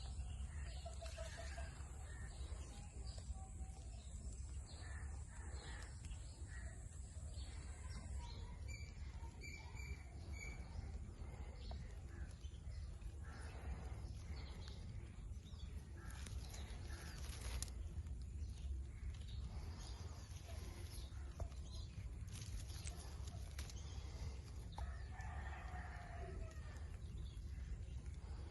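Lutino ringneck parrot (rose-ringed parakeet) giving scattered short chirps and squawks over a steady low rumble, with a longer burst of calls near the end.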